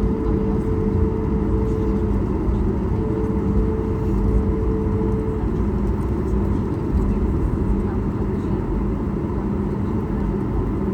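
Steady low rumble of a Boeing 737-8200's CFM LEAP-1B jet engines and airflow heard inside the passenger cabin, with a steady hum on top.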